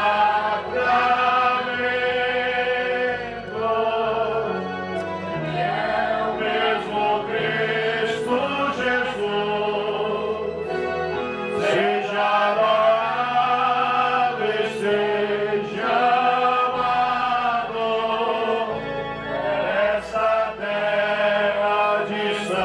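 Choir singing a slow Portuguese hymn to the Blessed Sacrament, with long held notes over an accompaniment.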